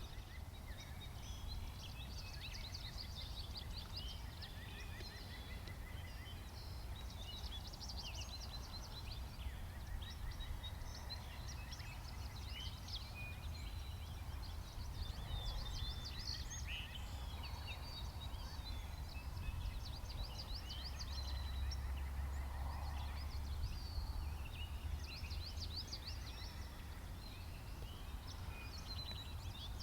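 Songbirds singing and chirping all through, over a low wind rumble, with a wild turkey gobbling a couple of times in the middle.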